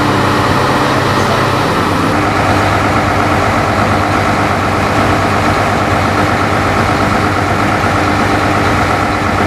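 Heavy diesel engine of a screw-piling rig running steadily at a constant pitch, its tone shifting slightly about two seconds in.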